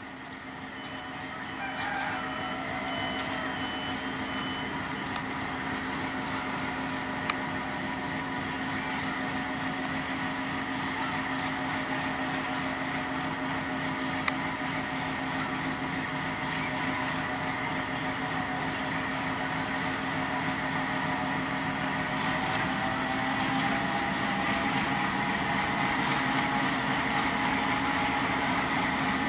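Diesel-electric locomotive of a passenger train drawing slowly closer, its engine running with a steady hum and whine that grows gradually louder as it nears.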